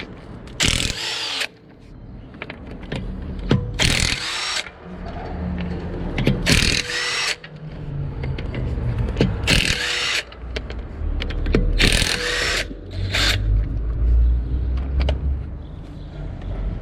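Teccpo TDIW01P 18V cordless impact driver run in six short bursts of under a second each, a few seconds apart, the last one very brief. Between bursts there is a low rumble.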